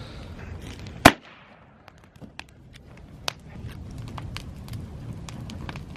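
A single sharp bang about a second in, followed by scattered light clicks and ticks.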